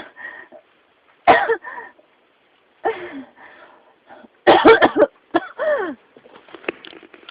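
A person in a coughing fit: single hoarse, voiced coughs a second or so apart, then a quick run of several coughs about four and a half seconds in, trailing off into smaller coughs. The uploader labels it a pneumonia cough that won't stop.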